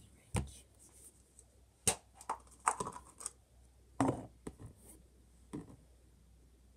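Hands opening a hard plastic toy capsule: a string of irregular clicks, scrapes and knocks of plastic as it is unwrapped, pulled apart and handled.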